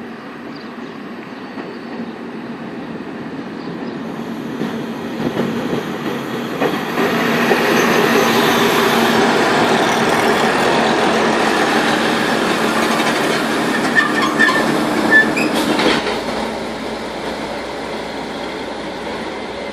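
An FS ALn 668 diesel railcar running past: its diesel engines drone louder as it comes close, loudest from about seven seconds in. Near the end of the pass come wheel clicks and a few short high wheel squeals, then the sound eases off.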